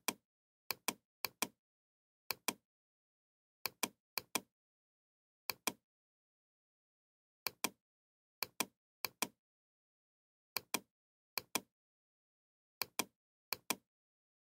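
Computer mouse button clicks, each a quick press-and-release double tick, about fourteen of them at uneven intervals, with dead silence between.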